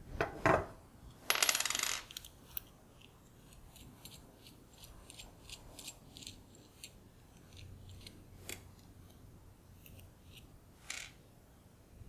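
Pagoda-style cam lock being taken apart by hand, its small metal parts clicking and clinking as the nut and washer come off. There is a short rasping burst about a second in, then scattered light ticks and a few sharper clinks.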